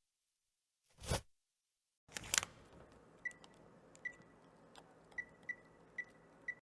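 A short swipe whoosh about a second in, then a faint stretch of soft clicks with six short high beeps at the same pitch, like touchscreen interface sounds.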